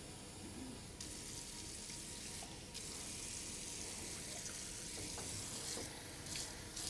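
Kitchen faucet running water into a plastic measuring pitcher at the sink, a steady hiss that gets a little louder about a second in.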